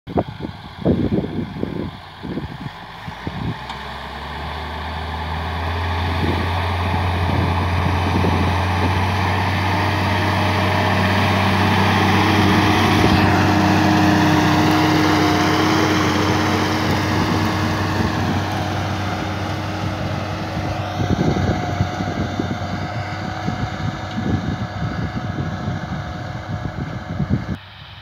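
Massey Ferguson 6180 tractor's diesel engine running steadily under load as it pulls a four-furrow plough through the soil. It grows louder as the tractor passes close about halfway through, then fades as it moves away. A few sharp knocks come in the first seconds, and the sound drops off abruptly just before the end.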